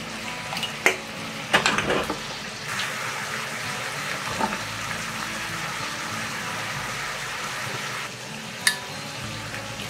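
Stir-fry of vegetables, pork and shrimp sizzling in a frying pan, with a silicone spatula knocking and scraping against the pan about a second in, in a quick cluster near two seconds, and once near the end. A steadier, louder sizzle sets in about three seconds in.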